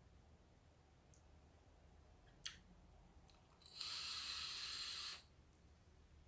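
A vape draw through a dripping atomizer fired at 60 watts: a single click about two and a half seconds in, then a steady airy hiss of about a second and a half as the vapour is pulled through.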